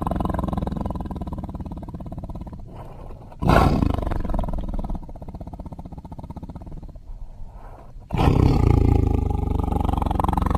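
Custom Gwythaint creature sound effect: loud, drawn-out animal-like roars. One roar fades out over the first few seconds, a new one breaks in sharply about three and a half seconds in, and another about eight seconds in.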